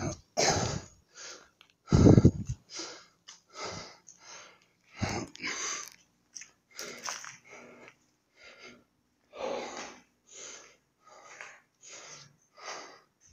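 A man breathing hard close to the microphone, a quick run of breaths in and out, out of breath from climbing a long flight of steps. One louder low bump comes about two seconds in.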